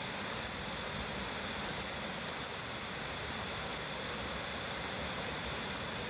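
Steady rush of a small waterfall spilling over rock into a shallow pool: Nomizo Falls' cascade through the Kameiwa cave.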